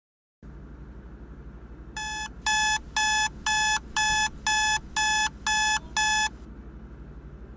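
Electronic wake-up alarm beeping, about two short pitched beeps a second, nine in all, over a low steady hum. The beeping starts about two seconds in and stops about six seconds in.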